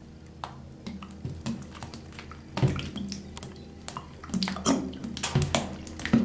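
Thick sauce squirted from a plastic squeeze bottle onto a tortilla: irregular wet splats and air sputters from the bottle, over a steady low hum.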